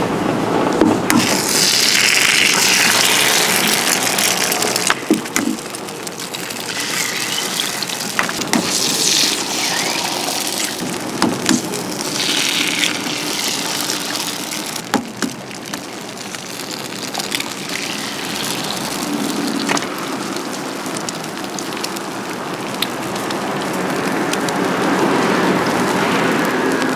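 Egg-bread stall at work: several bursts of hissing and sizzling from the griddle, with sharp metal clicks and knocks from the egg-bread machine's molds throughout.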